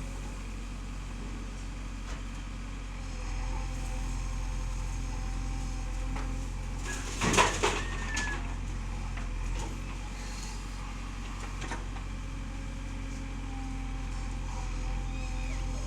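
A JCB backhoe loader's diesel engine running steadily at a low, even hum. A loud clattering burst comes about halfway through, lasting about a second.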